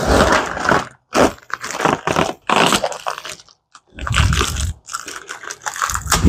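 Clear plastic wrapping around a clutch pressure plate crinkling and tearing as it is pulled and cut off, in irregular bursts. A couple of duller handling knocks come about four seconds in and near the end.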